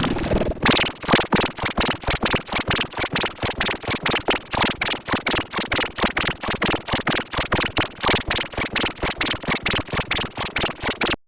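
A short electronically edited sound chopped into a rapid stutter, one brief fragment repeated about six times a second, starting under a second in. It cuts off abruptly near the end.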